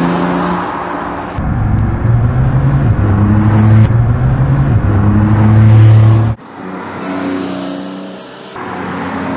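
Porsche 911 Carrera T's twin-turbo 3.0-litre flat-six exhaust under hard acceleration, the engine note shifting in steps. About six seconds in it cuts off abruptly to a quieter engine sound of the car driving by.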